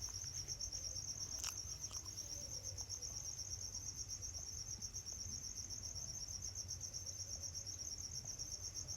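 Crickets chirping in a steady, high, rapidly pulsing trill, with one faint click about a second and a half in.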